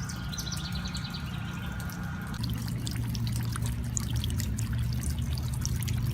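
Water trickling and dripping down a rain chain of holey stones, with many small scattered splashes. A steady low hum runs underneath.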